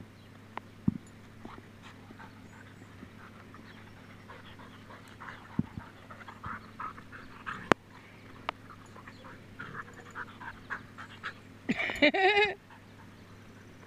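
Two dogs, an Australian shepherd and a golden retriever, play-wrestling: panting and scuffling with scattered short knocks. About twelve seconds in, the loudest sound is a short, wavering whine-growl from one of the dogs.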